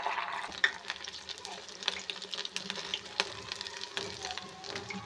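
Aloo tikkis shallow-frying in hot oil, sizzling with many small crackles, as a steel spatula turns them over one by one.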